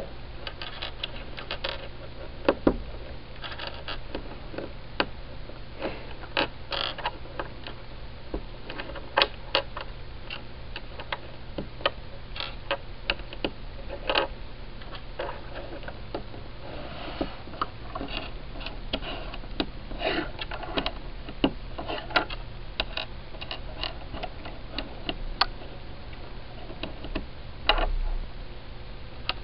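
Small plastic Lego pieces clicking and tapping against each other and on a hard tabletop as they are handled and fitted together, in irregular clicks with a few louder snaps, over a steady low hum.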